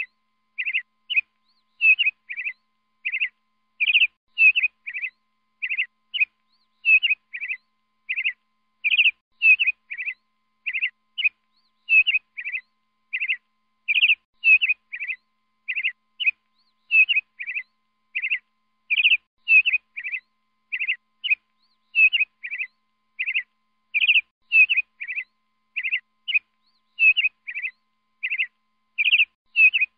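Peacock calling: short, sharp, high calls repeated rapidly, about two a second, in a steady regular pattern with silence between each call.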